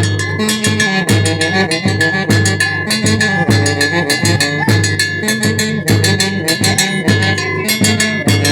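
Band orchestra playing: brass instruments over a steady, driving drum beat.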